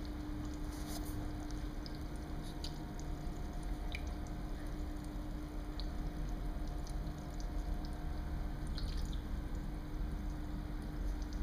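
Water in a goldfish aquarium trickling and dripping, with scattered small ticks and splashes, over a steady hum.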